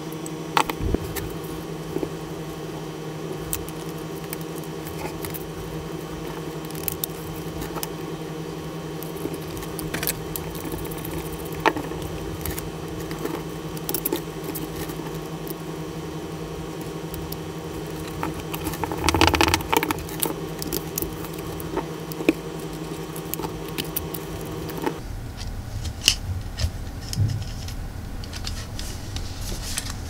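Scattered small clicks, taps and rattles of hands handling small metal screws, a clear plastic cooling fan and a wooden case panel, with a louder scrape about two thirds of the way through. A steady low hum runs underneath and stops near the end.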